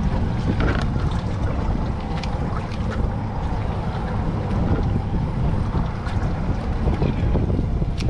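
Wind buffeting the microphone over a steady low rumble of the boat at sea, with a few faint light clicks from scissors and bait being handled on the cooler lid.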